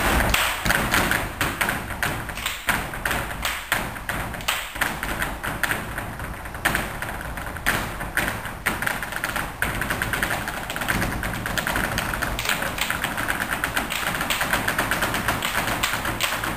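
Flamenco footwork (zapateado): dancers' heeled shoes striking a wooden stage in fast, irregular rattles of heel and toe taps, with no accompanying music, over a low steady hum.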